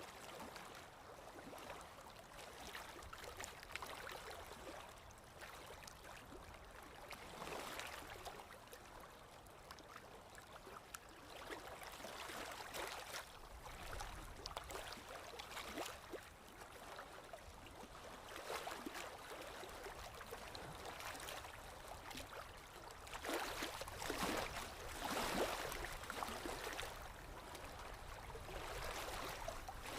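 Irregular swishing and scraping of a paintbrush stroking acrylic paint onto a canvas, a little louder near the end.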